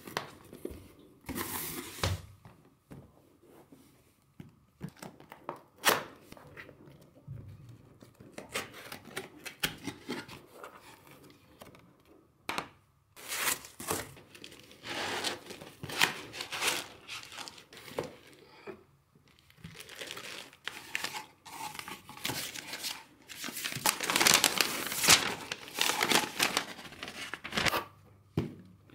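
Cardboard and foam packaging of a camera lens being handled and opened: irregular rustling and crinkling with sharp clicks and taps now and then, in dense spurts through the second half.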